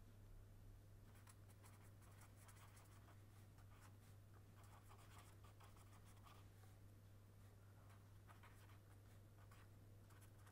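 Faint scratching of a marker pen writing on paper, in short irregular strokes, over a steady low electrical hum.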